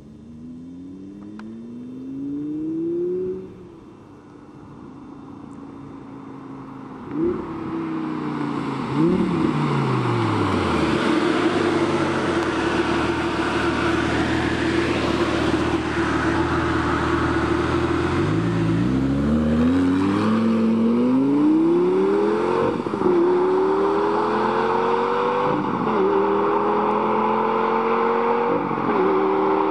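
Lamborghini Gallardo V10 exhaust under hard acceleration. The engine note first drops and settles, then climbs again through quick upshifts, heard as the pitch rising and then falling suddenly about every three seconds near the end.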